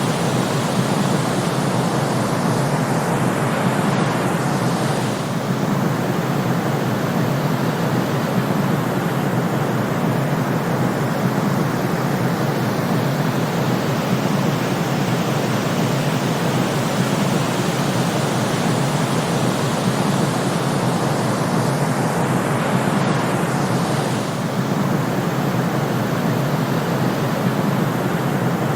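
Steady white-noise sleep track: an even hiss-like rush, heaviest in the low range, with a slight dip in loudness about five seconds in and again near the end.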